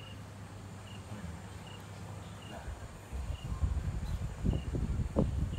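A short, high chirp repeating a little more often than once a second, like a cricket, over a steady low hum. From about three seconds in, irregular low thumping and rumbling noises come in and are the loudest sound.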